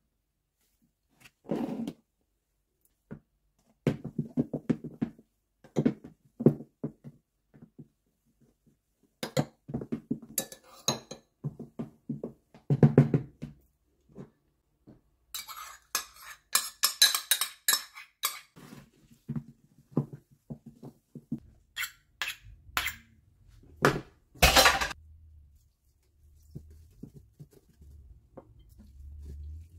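A ladle and spoons knocking and scraping against plastic mixing bowls as batter is ladled out and stirred, in irregular clinks and scrapes. A denser run of scraping comes around the middle, and a few sharp clinks come later.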